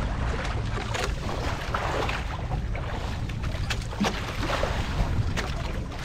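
Wind rumbling on the microphone aboard a small fishing boat at sea, with irregular splashing and slapping of water against the hull.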